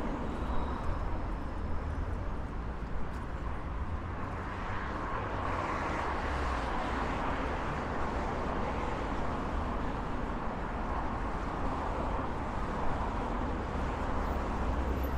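Street traffic noise: a steady low rumble of vehicles that swells louder through the middle, as if a vehicle is passing.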